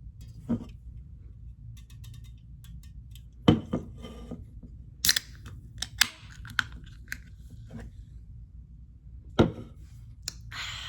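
Scattered sharp clicks and knocks, like objects being handled, over a steady low hum. The loudest knocks come about three and a half seconds in and again near the end, followed by a short hiss.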